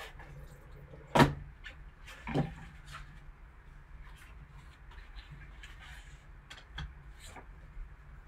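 A rigid cardboard card box being handled and opened: a sharp knock about a second in and another just over a second later, then lighter taps and the rustle of a paper insert card.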